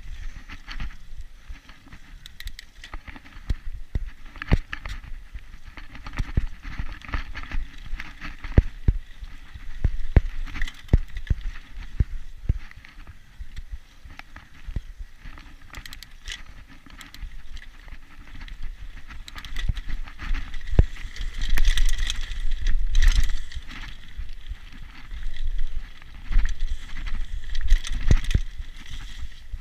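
Mountain bike riding over a rough dirt trail: a constant irregular clatter of knocks and rattles from the bike over bumps, over a low rumble, growing louder and busier about two-thirds of the way through.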